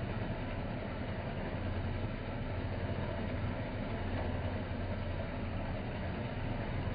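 Horizontal metal-cutting band saw running with its blade working through a bundle of square metal tubing: a steady motor hum under an even cutting noise.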